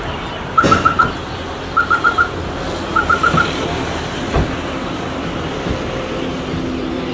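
An electronic beeper sounding in quick groups of four high beeps, about one group a second, three groups before it stops about three and a half seconds in, over steady street traffic noise.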